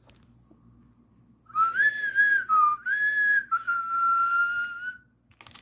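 A person whistling to call a dog: a few short, wavering notes, then one long steady note.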